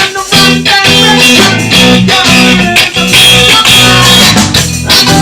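Rock band music without vocals: a guitar riff over a pulsing bass line and drums.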